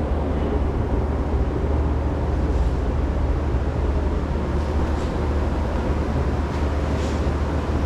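A steady low machine hum over a faint even hiss, with a few brief faint hissy touches in the second half.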